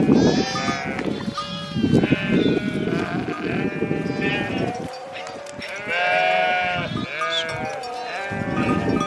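A flock of sheep bleating, many calls overlapping one another.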